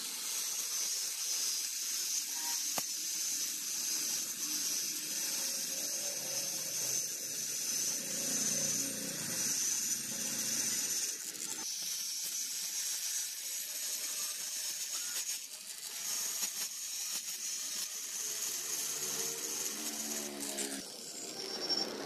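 Electric angle grinder with a thin cutting disc running and cutting through welded steel wire mesh, a steady high-pitched hiss of the disc on the wires. It is louder in the first half, and it stops near the end.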